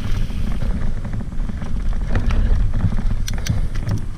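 Mountain bike riding along a dirt trail: a steady low rumble of wind on the microphone and tyres on the ground, with a few sharp rattling clicks from the bike about three seconds in.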